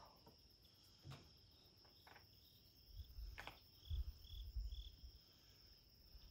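Faint, steady high-pitched insect trilling, with a few soft clicks and a brief low rumble near the middle.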